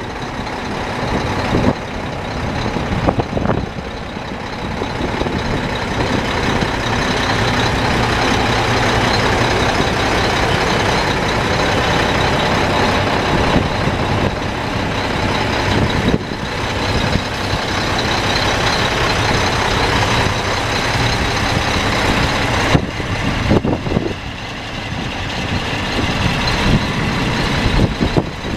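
Diesel engine of a 2003 Mack CH600 semi tractor idling, with a thin steady high whine over the rumble. It grows louder a few seconds in and stays so through the middle.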